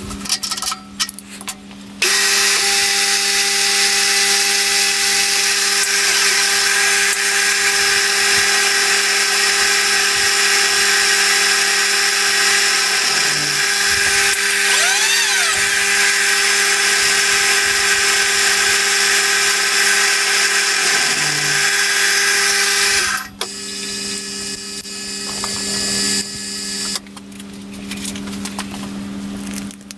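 Electric drill drilling a 5 mm hole through steel tube. The motor hums steadily throughout; a loud, harsh cutting noise begins about two seconds in and lasts about twenty seconds, then the drill runs more quietly and stops a few seconds later.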